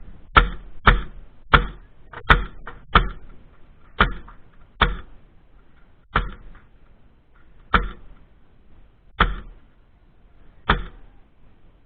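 Airsoft gun firing single shots, about a dozen sharp cracks. They come about twice a second at first and slow to one every second and a half near the end.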